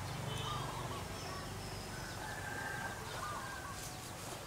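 Faint short high-pitched animal calls, one held for about a second near the middle, over a steady low hum.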